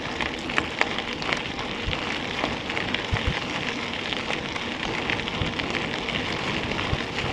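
Mountain bike tyres rolling fast over a gravel track: a steady crunching crackle with many small clicks of loose stones.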